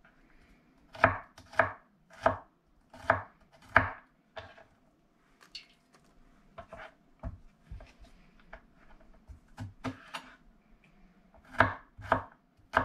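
Kitchen knife chopping garlic cloves on a wooden cutting board: a run of sharp knocks about one every 0.7 seconds for the first few seconds, softer scattered taps in the middle, then another run of knocks near the end.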